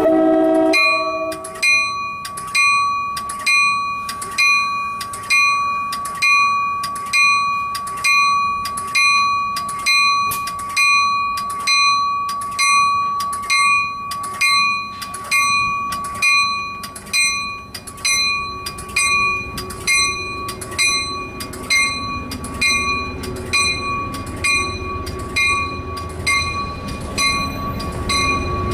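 Train's bell ringing steadily, about three strikes every two seconds, as an Amtrak California train pulls out. A low rumble of the train rolling builds through the second half.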